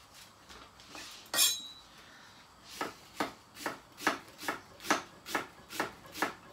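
Kitchen knife slicing an onion on a wooden chopping board: a sharp knock about a second and a half in, then steady, even cuts at about two a second from about three seconds in.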